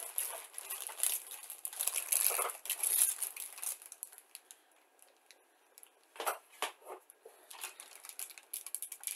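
Heat-sealed plastic bag of model-kit sprues crinkling as it is handled, with light clicks and clatters of the plastic parts inside. The rustling dies down about halfway through, then a few sharp clicks follow.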